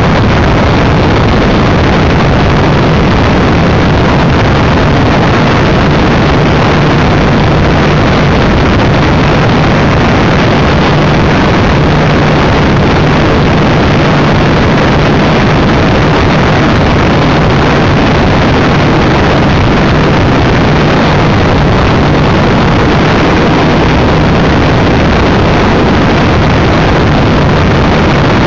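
Electric motor and spinning propeller of a Multiplex EasyGlider radio-controlled motor glider under power in flight, heard from the aircraft itself: a loud, steady low hum over a continuous rush of air.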